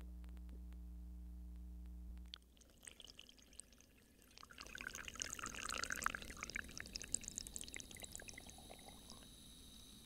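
A steady low hum that stops about two seconds in, then water pouring and splashing into a pressure test chamber, loudest near the middle and thinning to a trickle.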